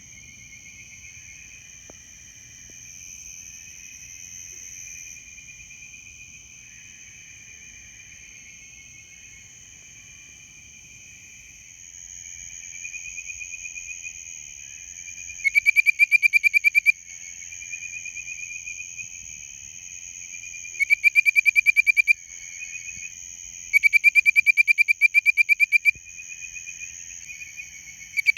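Bird-voiced tree frogs calling: a chorus of them warbles in the distance, then from about halfway in a frog close by gives four loud bouts of rapid, whistled, bird-like notes, each one to two seconds long, the last running on at the end. A steady high insect drone runs underneath.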